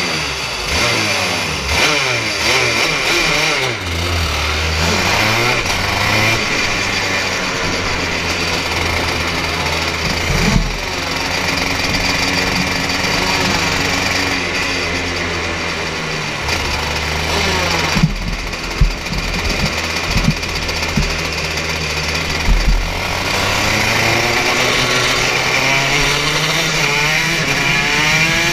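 Racing kart engine heard from onboard, its pitch rising and falling over and over as the kart accelerates and slows through the laps. A few short knocks come about two-thirds of the way through.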